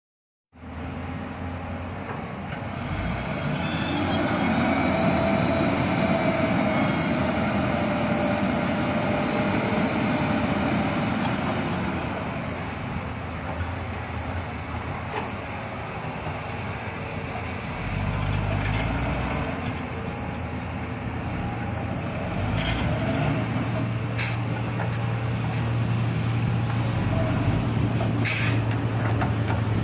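Heavy diesel earthmoving machinery running steadily, with a high whine from about four to eleven seconds and a few sharp metallic clanks near the end.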